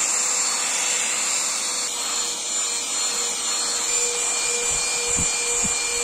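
XREXS cordless handheld vacuum cleaner running steadily with its brush attachment over car floor carpet: a constant motor whine over rushing airflow, with a few low thumps near the end.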